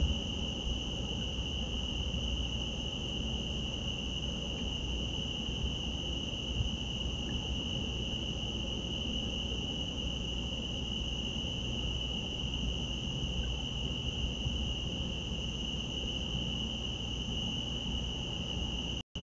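Crickets trilling in a steady, unbroken night chorus over a low background hiss; it cuts off suddenly near the end.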